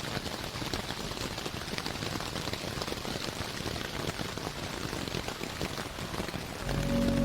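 Rain sound effect on its own: a steady hiss of rain with fine pattering drops. Slow, reverb-drenched ambient music with long held low tones swells back in near the end.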